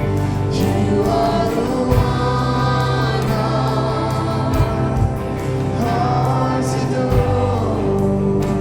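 A church worship band playing a Christmas song, with held bass notes, a few drum hits and singing voices.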